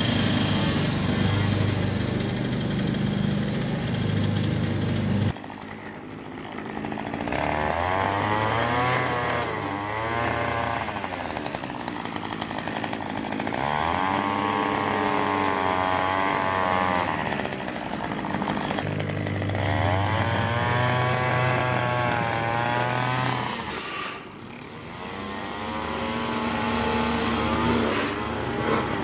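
Gas string trimmer's two-stroke engine revving up and falling back toward idle about four times as it cuts grass. Before that, a steady engine drone runs for about five seconds and cuts off suddenly.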